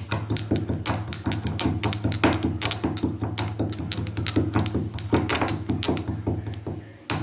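Pestle pounding roasted cloves and black peppercorns in a mortar, an irregular run of sharp strikes a few times a second, over a steady low hum.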